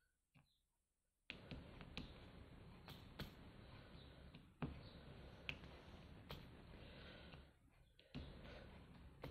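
Faint, irregular clicks of a diamond-painting drill pen pressing square drills onto the canvas, over a low hiss that comes in about a second in.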